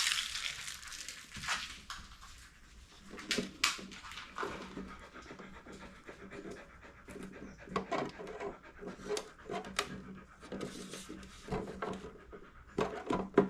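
A dog panting, in irregular breathy bursts.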